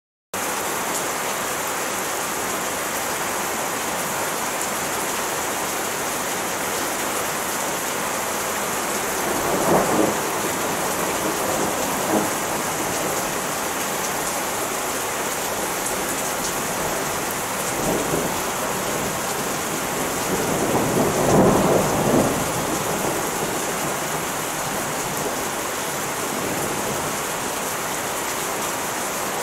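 Heavy rain pouring steadily in a thunderstorm, with rumbles of thunder rolling in about ten seconds in and again twice later, the loudest one about two-thirds of the way through.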